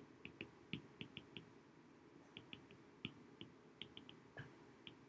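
Plastic stylus tip tapping and clicking on a tablet's glass screen during handwriting: faint, sharp, irregular ticks, several a second in small clusters.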